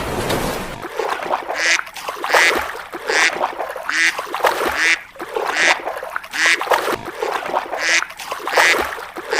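An animal calling over and over, with short calls coming roughly once every 0.8 s after a brief noisy hiss at the start.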